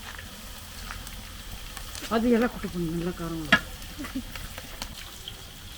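Whole spices sizzling in hot oil in a pot over a wood fire, with a few light clicks, and a voice breaking in briefly about two seconds in.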